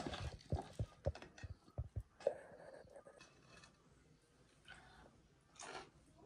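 A hand mixing and kneading cucumber and potato pickle in a metal bowl: a run of short, soft knocks and clicks over the first two seconds, then only faint sounds.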